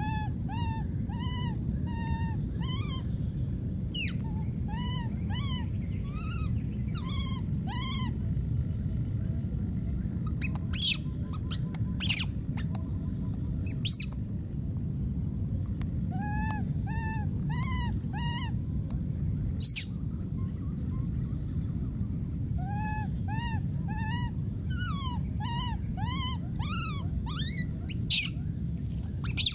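Infant macaque calling over and over: short, high, wavering cries, each rising then falling, about one or two a second in runs with brief pauses, over a steady low rumble and a few sharp clicks.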